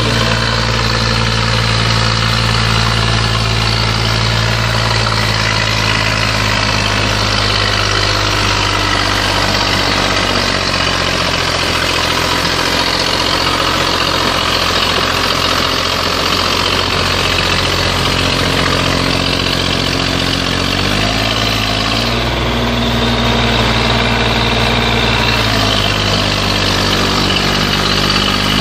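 Zetor 5245 tractor's diesel engine running steadily under load as it pulls a loaded trailer up a muddy slope. Its revs shift slightly about two-thirds of the way through and again near the end.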